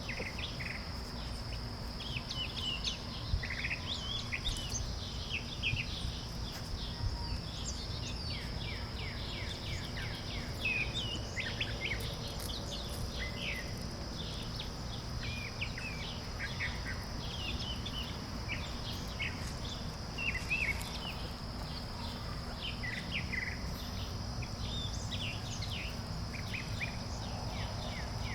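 Four-week-old puppies squeaking and whimpering: many short, high squeaks in quick, irregular succession, over a steady high drone and a low hum.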